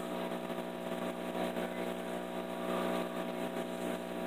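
Steady hum of a small electric motor, even and unchanging, with a faint hiss underneath.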